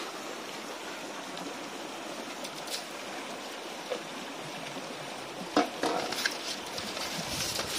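Steady rush of a small flowing stream. From about five and a half seconds in, irregular wet squelches and clicks of a hand rubbing cut fish pieces with turmeric and rock salt in a perforated metal colander.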